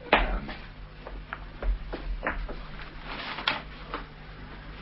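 A few faint separate clicks and light knocks, as of small objects being handled, over a steady low hum from the old recording.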